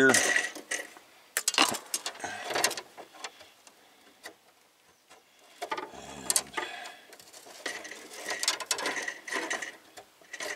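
New metal brake line being bent by hand under the vehicle: clicking, scraping and rattling of the tube against itself and the underbody, in two bouts with a quieter spell in the middle.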